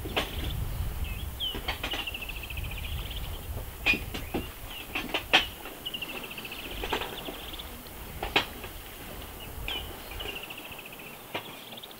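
A bird calling again and again with a fast, slightly falling trill, each call a second or two long, over a low outdoor rumble that drops away about ten seconds in. Scattered sharp clicks and knocks, the loudest about four and five seconds in.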